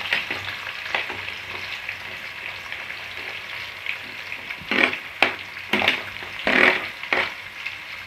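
Sliced onions sizzling as they drop into hot oil and ghee in a metal kadai. A steel spoon stirs them, with several louder scraping strokes in the second half.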